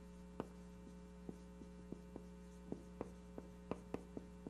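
Marker writing on a whiteboard: a string of small, irregular taps as the pen strikes and lifts from the board, over a steady electrical mains hum.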